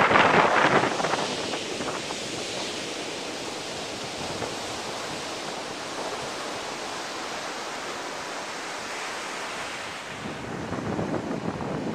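Ocean surf breaking and washing up a sandy beach as a steady hiss. Wind buffets the microphone loudly in the first second and again near the end.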